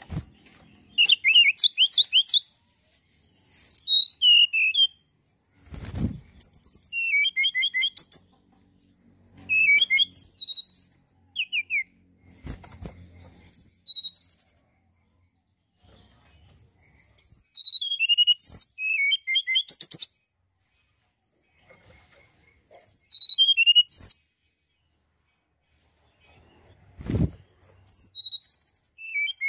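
Tledekan gunung, a blue flycatcher, singing short phrases of quick, high warbling and trilling notes again and again, with pauses between. Three dull thumps come in between the phrases.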